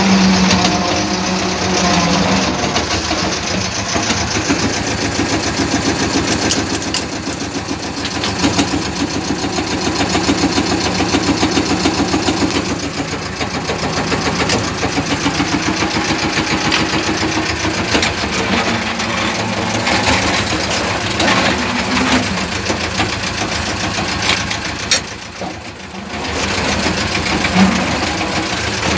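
Farm tractor's diesel engine running steadily under load with a fast even knock of its firing strokes, while pulling a potato ridger through the rows, heard from the driver's seat. The sound drops away briefly about three-quarters of the way through.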